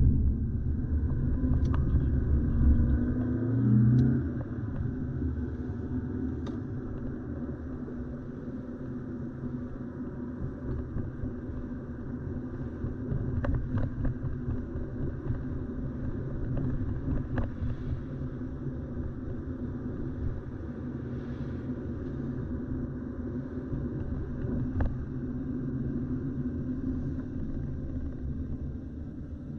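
A car being driven: a steady low engine and road rumble. The engine note rises briefly a few seconds in as it speeds up, and a few faint clicks or knocks are scattered through it.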